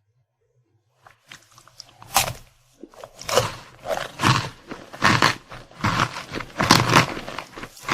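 Close-miked crunchy eating: a sharp bite about two seconds in, then steady crunchy chewing at about one chew every two-thirds of a second.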